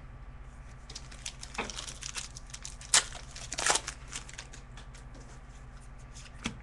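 Trading card packs being handled and opened: wrappers crinkling and tearing, with scattered clicks and taps, and a sharper click about three seconds in.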